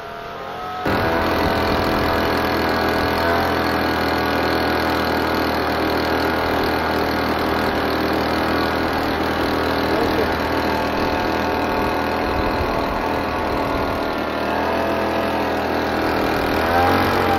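Race car engine idling steadily, starting abruptly about a second in, with a few brief rises in pitch from light blips of the throttle.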